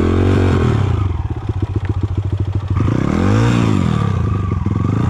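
Dirt bike engine idling with an even putter, revved briefly twice: a short blip just after the start and another, rising and falling, about three and a half seconds in.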